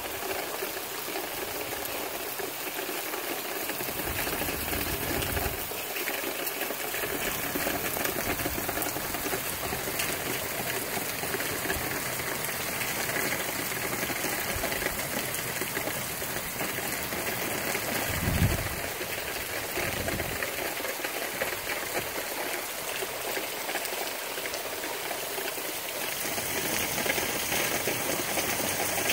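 Tropical-storm rain and wind: a steady rush of rain with a few low gusts rumbling through, the strongest about eighteen seconds in.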